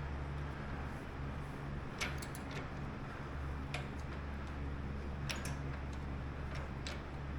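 A few scattered metallic clicks and taps as a fork is worked in a ring bender, over a steady low hum.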